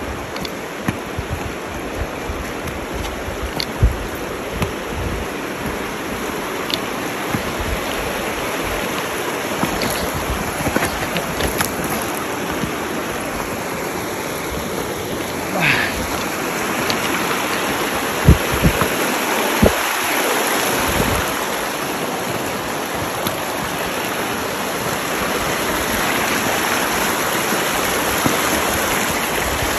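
Shallow creek running over rocks, a steady rush of water, with occasional short knocks.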